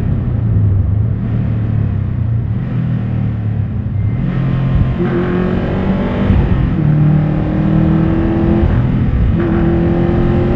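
Subaru WRX STI's turbocharged flat-four boxer engine, tuned to about 400 hp, with its exhaust. It runs steadily at first, then pulls hard from about four seconds in, its pitch climbing within each gear, with short breaks for upshifts around five, seven and nine and a half seconds in.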